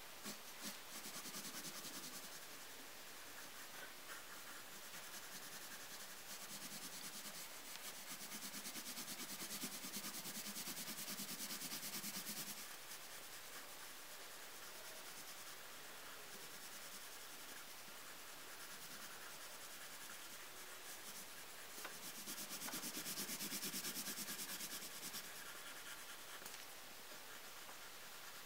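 Lyra coloured pencil shading on paper in quick back-and-forth rubbing strokes. It is soft throughout and gets louder in two stretches, from about six to twelve seconds in and again from about twenty-two to twenty-six seconds in.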